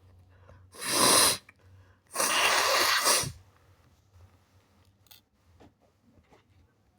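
A person sneezing wetly twice: a short sneeze about a second in, then a longer one lasting about a second.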